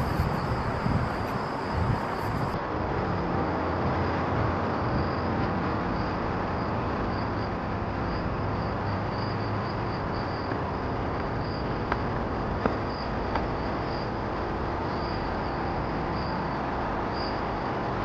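Insects chirping in a high, repeatedly pulsing band over a steady background rush of outdoor noise, with a few faint clicks.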